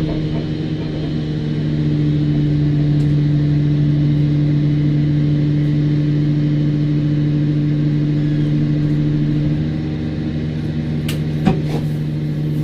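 A steady engine hum holding one low pitch throughout, with a few sharp clicks near the end.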